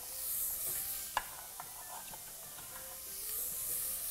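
Diced carrots and celery sizzling in olive oil in a pot as they sweat, a steady hiss with a light knock about a second in.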